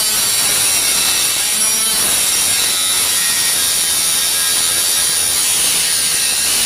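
12-volt cordless angle grinder cutting into metal: a steady high whine from the spinning disc over a continuous grinding hiss, stopping abruptly at the end.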